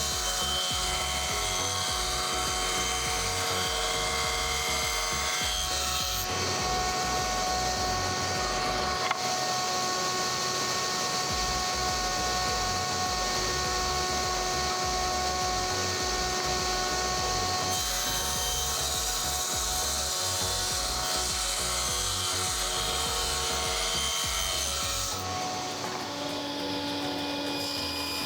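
Wood being worked with tools: a steady sawing and rubbing noise, changing abruptly about 6, 18 and 25 seconds in.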